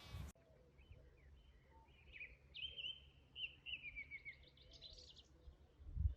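A songbird singing one varied phrase of clear whistles and falling trills, ending in a quick run of high notes, over a faint low background rumble. The tail of a sheep's bleat is cut off at the very start.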